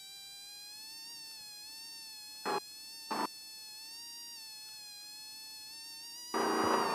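Race vehicle's running whine, steady with a slight waver in pitch, broken by two brief louder bursts about two and a half and three seconds in and a longer loud burst near the end.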